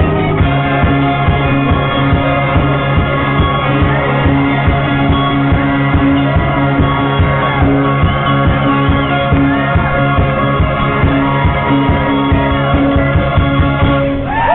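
Band playing a rock song with sustained chords over a steady drum beat; the music stops near the end.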